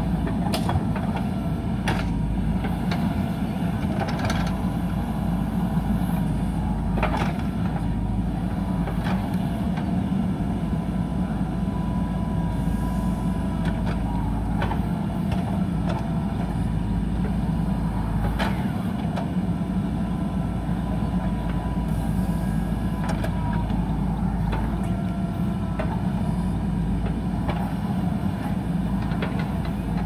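JCB backhoe loader's diesel engine running steadily under load while the backhoe arm digs and drags soil, with a sharp clank every few seconds from the bucket and boom.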